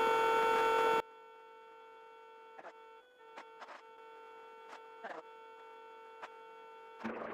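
Steady electrical hum with a few overtones over hiss on the cockpit radio/intercom audio. The hiss cuts off abruptly about a second in, leaving a fainter hum with scattered clicks, and a burst of noise returns near the end.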